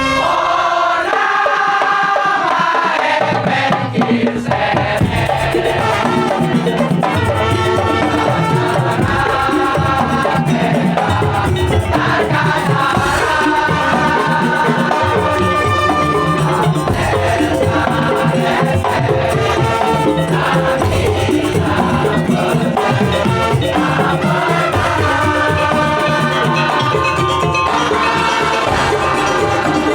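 Madurese daul (tongtong) percussion ensemble playing: dense drumming and rattling percussion under a repeating melodic line. The low drums drop out briefly at the start and come back a few seconds in.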